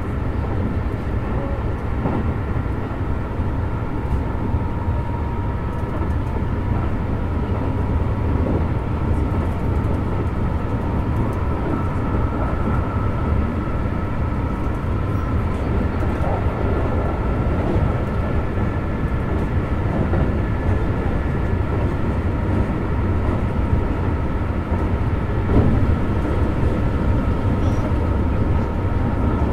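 Keikyu New 1000 series (1800 subseries) electric train running, heard from inside the front car: a steady low rumble from the running gear with a faint, even high hum above it.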